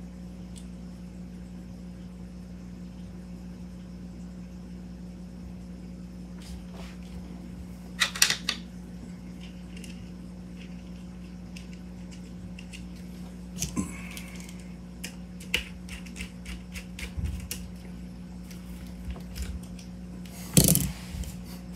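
Clicks and knocks of a carbon fiber air bottle and its adapter being handled and screwed onto an air rifle by hand, scattered and irregular, with a run of small clicks toward the end and the loudest knock just before the end, over a steady low hum.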